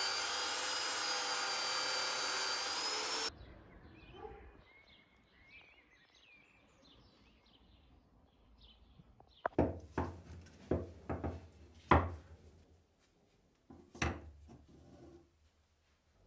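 A bench motor's abrasive wheel runs with a steady whine while a steel dagger blade is pressed against it, and it cuts off suddenly about three seconds in. Faint bird chirps follow, then a string of sharp knocks in the second half.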